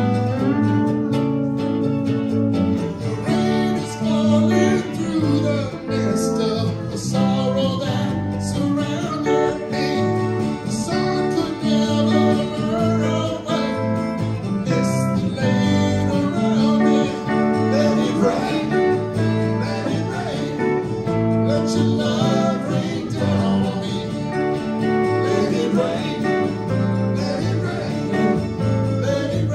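Live string band playing an upbeat country-rock tune: acoustic guitar, pedal steel guitar, banjo and electric bass, with a man singing lead.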